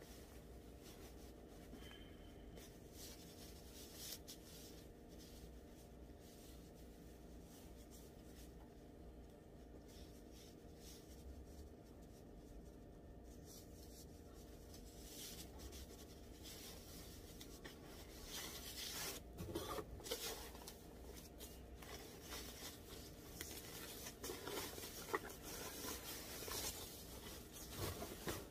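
Faint steady room hum, then, from about halfway, intermittent rustling and rubbing as a motorcycle helmet is worked out of its cloth helmet bag and white packing wrap. The rustling grows busier toward the end.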